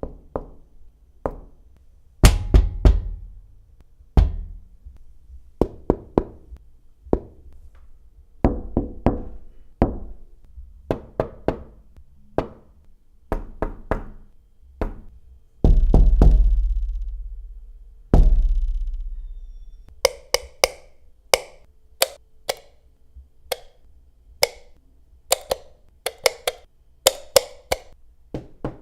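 Knocking on a series of different surfaces such as wood, glass and plastic, in quick groups of two to four raps. Duller knocks come first, two heavy booming knocks with a long ringing decay come midway, and brighter, sharper knocks fill the last third.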